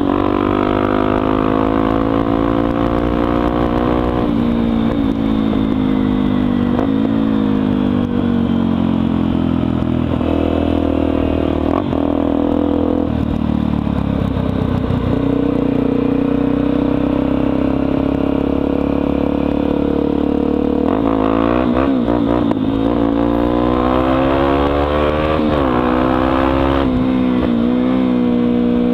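Honda XR250 Tornado's single-cylinder four-stroke engine, exhaust de-baffled, heard from on the bike while riding. The engine note climbs and drops repeatedly as the rider works through the gears, with sharp falls in pitch about four seconds in, around the middle, and twice near the end.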